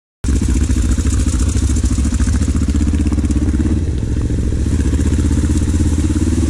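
Kawasaki KLE500's parallel-twin engine running steadily at low revs while the motorcycle rides along a trail, with a steady hiss over it. It cuts in abruptly just after the start.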